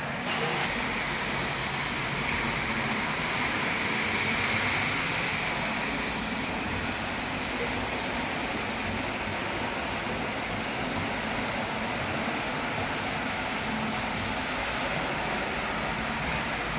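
Walk-behind wet floor scrubber (C510B) running steadily: the even whir of its motors and suction, with no change in pitch.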